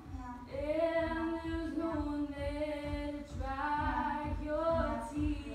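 Female voices singing unaccompanied, with long held notes that slide up into pitch and waver on the later notes.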